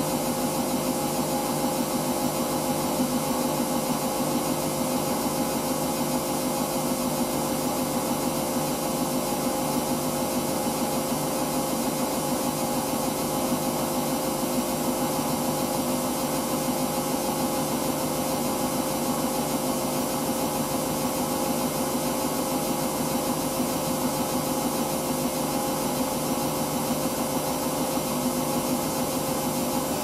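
Hoover VisionDynamic front-loading washing machine spinning its drum at a steady speed in an intermediate spin, the motor giving a constant whine over the drum's hum; the owner puts this spin at only about 400 rpm.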